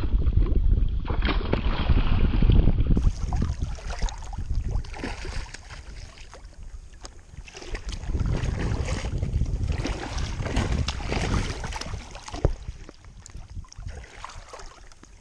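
Water splashing and sloshing as a hooked speckled trout thrashes at the surface near a landing net. Heavy wind rumble on the action-camera microphone dominates the first few seconds.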